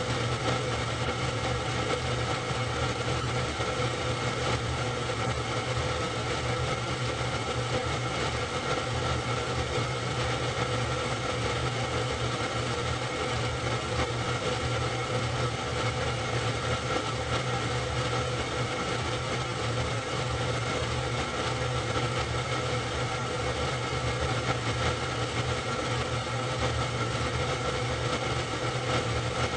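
Super 8 film projector running: a steady mechanical whirr and hum at one even level, unchanged as the pictures change.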